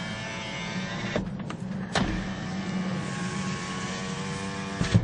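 Toyota Corolla power window motor running as the side glass travels in its channel. It stops with a clunk about a second in, starts again with a click about two seconds in as the glass reverses, and stops with a thump near the end.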